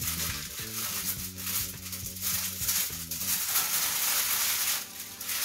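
Aluminium foil being pulled off an oven rack and crumpled by hand, a continuous crinkling and rustling. Background music with steady tones fades out about three seconds in.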